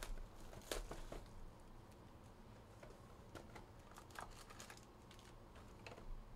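Faint crinkling and tearing of cellophane shrink-wrap being stripped off a trading-card box, then light cardboard and foil-pack handling as the box is opened and its packs pulled out, in short scattered crackles.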